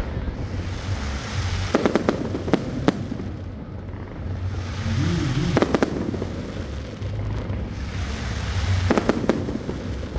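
Aerial fireworks going off: a steady deep rumble of shell bursts, with clusters of sharp crackling pops about two, five and a half, and nine seconds in.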